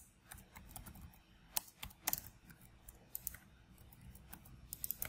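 Computer keyboard typing: scattered, irregular keystrokes, with a few louder clicks about one and a half and two seconds in.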